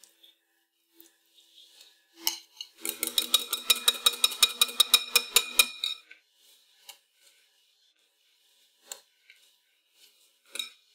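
Wire whisk beating whipped cream in a bowl, the wires clinking rapidly against the bowl at about six strokes a second for nearly three seconds, briefly firming the cream. After it come a few scattered light taps as cream is scooped out.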